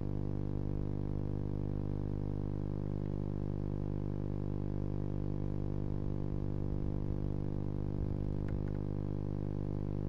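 Steady electrical hum with many evenly spaced overtones, unchanging throughout, with a couple of faint clicks about eight and a half seconds in.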